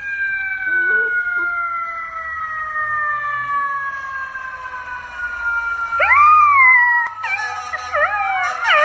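A siren sounds one long, slowly falling tone. About six seconds in, a golden retriever puppy starts howling along, its high howls rising and falling and then wavering.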